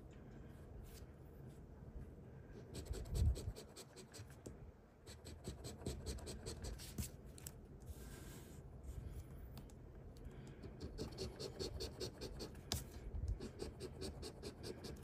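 A coin scraping the latex coating off a scratch-off lottery ticket: quick, repeated back-and-forth strokes in two spells with a short pause midway. A soft low knock about three seconds in.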